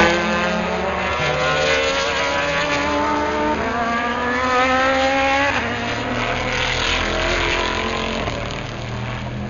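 Race car engines at full throttle accelerating out of a corner: the pitch climbs and drops back at each upshift, about three times. From about six seconds in, a deeper rumble takes over as another car passes close by.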